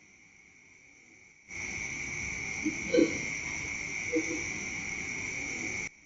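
Crickets chirping in a steady high drone. About a second and a half in, the whole sound abruptly jumps much louder with added hiss and a few short low calls, then drops back down just before the end.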